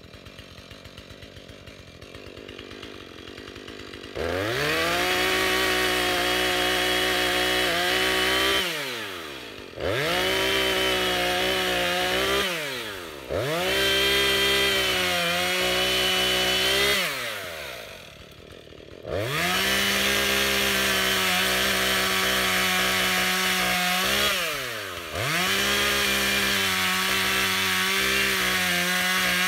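Gas chainsaw idling quietly, then revved to full throttle about four seconds in and cutting into a fallen tree limb in five long runs. Each run ends with the engine note falling away as the throttle is let off, before it revs up again.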